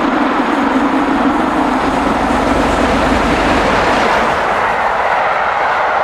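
LMS Princess Coronation class steam locomotive 6233 Duchess of Sutherland running through at speed with its train, a loud, steady rush of wheels on rail. The sound shifts about four seconds in as the coaches go by.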